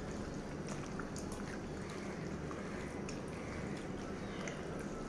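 Faint wet squelching of raw chicken pieces in a ginger-garlic and vinegar marinade being mixed by hand in a glass bowl, with scattered soft clicks over a steady low hum.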